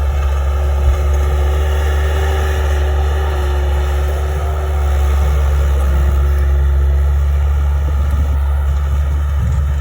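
Skid steer engine running steadily with a low rumble, working to clear snow from a pen.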